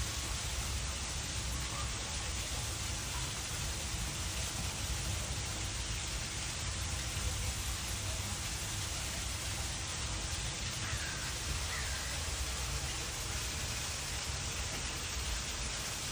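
Steady hissing background noise with a low rumble underneath, even throughout, and a couple of faint brief chirps about eleven seconds in.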